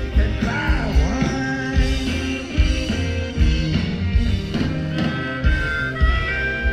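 Live blues-rock band playing at full volume, with drums and bass keeping a steady beat. A lead line bends in pitch about half a second in, and long high notes are held near the end.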